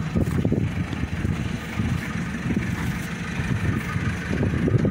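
A steady low machine hum, like an engine running at idle, that holds level throughout.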